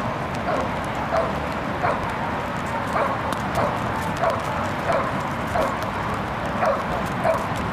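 Young dog barking steadily and rhythmically, about three barks every two seconds, at a helper in a padded bite suit, holding him in place with its barking as in a protection-sport bark-and-hold.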